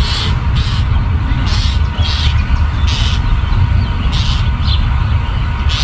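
A bird near its nest box gives a series of short, harsh calls, about eight in all, a half-second to a second apart. A loud low rumble runs under them.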